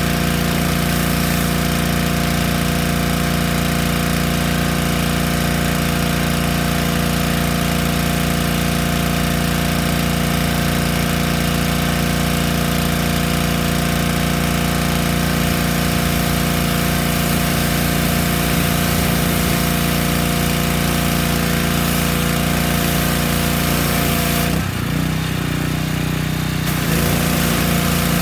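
Yamaha PowerStroke 3100 PSI gas pressure washer running steadily while its wand sprays a hissing jet of water. About 25 seconds in, the spray stops for about two seconds and the engine note shifts, then the spray starts again.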